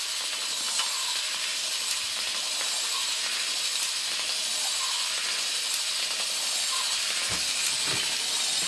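A 3D-printed eight-legged walking robot running under its single N20 gear motor. The motor turns a long screw drive, plastic gears and leg linkages, and gives a steady high whirring with light clicks from the mechanism.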